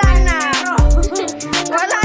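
Background music with a heavy bass beat, quick high ticks and gliding melodic lines.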